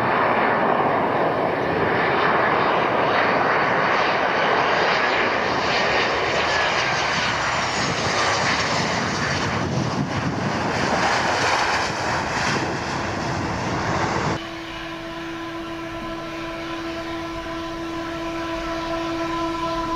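Ryanair Boeing 737 jet engines running loudly as the airliner comes in to land and rolls out on the runway. After an abrupt cut about fourteen seconds in, a quieter steady whine of the engines at low power as it slows and taxis.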